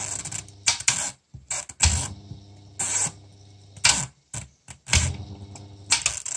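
Sharp clicks of a Waco universal 24-hour timer's switch as its dial is turned by hand past the on and off tabs. Between the clicks a small 230-volt motor hums in short spells, switched on and off by the timer.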